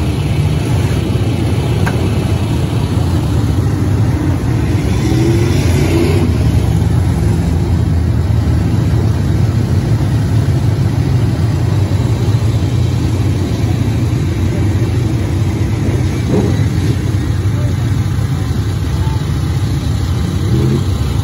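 Engines of a pack of dirt-track race cars running together, a loud, steady mix of many engines through the whole stretch.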